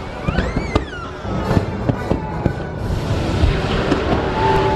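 Fireworks going off over water in a quick run of sharp bangs and crackles, with a whistle that rises and falls about half a second in, over loud accompanying show music.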